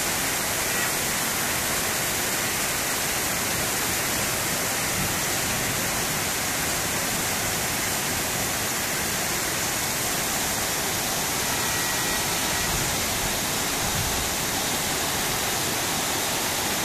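Heavy rain falling steadily, a constant even downpour with no letup.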